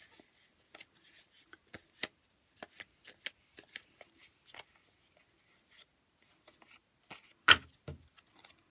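Sailor Moon Monopoly cards being handled and sorted by hand: a run of short rubs and flicks as the cards slide over one another, with one louder tap near the end.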